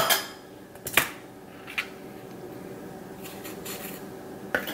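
A spoon scraping seeds and stringy pulp out of raw acorn squash slices, with a few sharp clicks and knocks about a second apart and a short run of soft scraping near the end.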